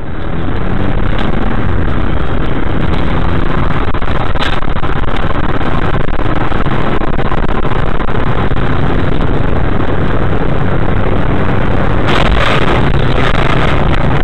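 Road and engine noise inside a moving car, picked up by a dashcam's microphone: a loud, steady rumble and hiss that swells briefly near the end.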